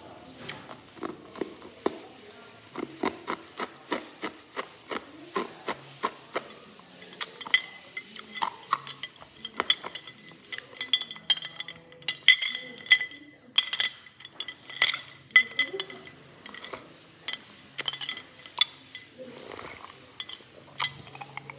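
Hard ice being bitten and chewed close to the microphone: a run of sharp crunches and cracks, several a second. From about seven seconds in, some of them ring with a glassy clink.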